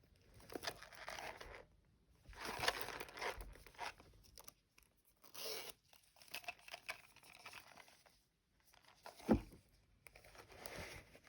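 Paper packaging rustling and crinkling in several separate bursts as it is handled, with a short low thump about nine seconds in.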